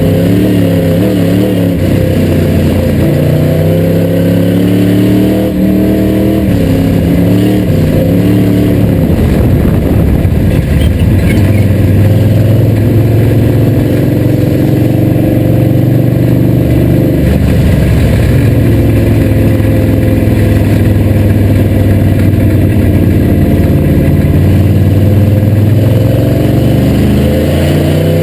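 355 crate V8 of an IMCA sport modified race car, heard from inside the cockpit at practice speed on a dirt oval. The engine note rises and falls with the throttle and holds a steady pitch for long stretches between.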